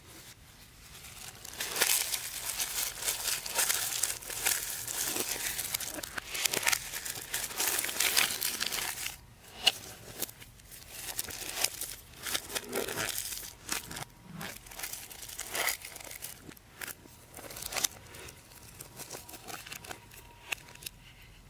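Packaging wrap being handled and crumpled: dense crinkling for several seconds, then scattered crinkles and small clicks.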